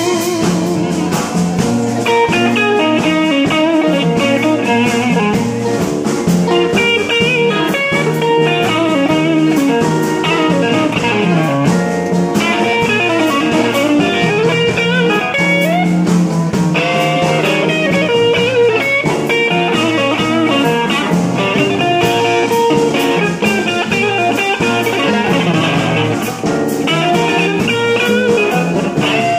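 Live blues band playing an instrumental passage without vocals: electric guitars over upright bass and drums.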